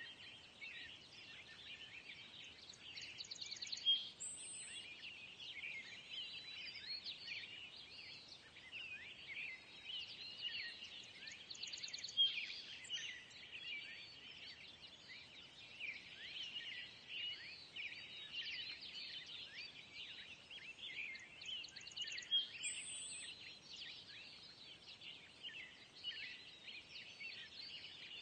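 Ambient birdsong: many small birds chirping without pause, with a louder call three times, a quick rattle ending in a sharp high note.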